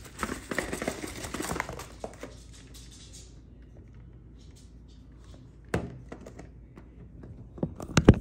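Plastic and paper packaging crinkling and rustling as it is handled for about two seconds, then quiet. A single sharp knock about six seconds in and a quick cluster of knocks near the end, the last one the loudest.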